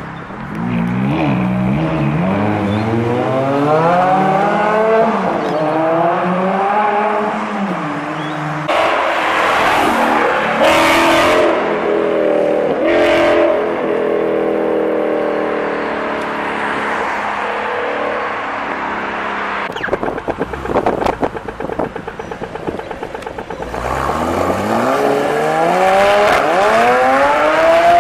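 Performance car engines accelerating hard, the pitch climbing and dropping back at each of several upshifts, then a loud pass of rushing noise. About twenty seconds in comes a quick run of sharp exhaust pops and crackles, and near the end another car's engine revs up rising through the gears.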